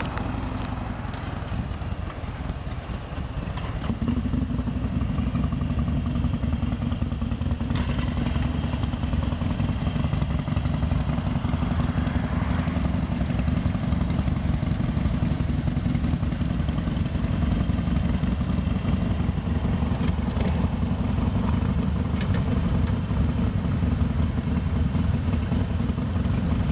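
Several Harley-Davidson Sportster air-cooled V-twin engines idling together in a steady low rumble, growing louder about four seconds in.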